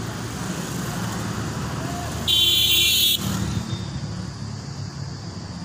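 Road traffic running steadily below, with one short, loud, high-pitched vehicle horn honk a little over two seconds in, lasting under a second.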